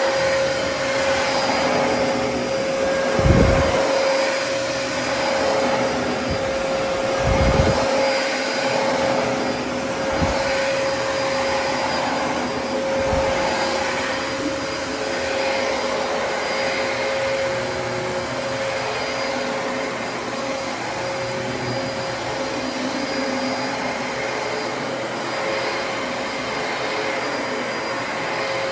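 Dyson DC33 upright vacuum cleaner running steadily, with a constant motor whine over the airflow noise. A few dull low thumps come in the first half.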